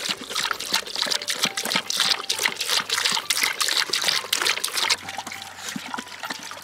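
Saint Bernard lapping water from the stream of a running garden hose: rapid splashy laps over the trickle of water, easing off about five seconds in to a softer trickle.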